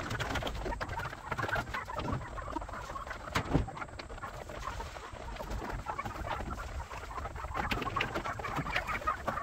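A group of young meat turkeys calling with scattered clucks and chirps. A single knock about three and a half seconds in.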